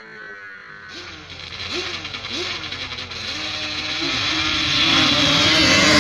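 Motorcycle engine revved in a few quick throttle blips, each rising and falling in pitch, then held at a steady higher speed and getting louder toward the end.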